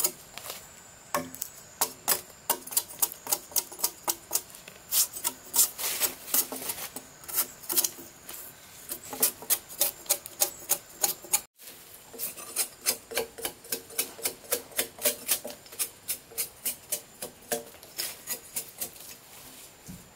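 A hand tool working wood in quick repeated scraping, knocking strokes, two to three a second, with a brief break about halfway through.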